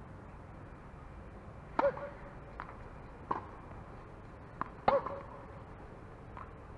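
A few sharp clicks or knocks over a quiet background. The two loudest come about three seconds apart, each with a brief pitched ring after it.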